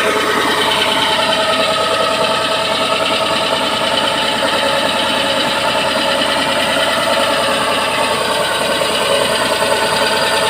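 Drilling machine running steadily while drilling, its engine note held at a constant level with a fast, even mechanical rattle.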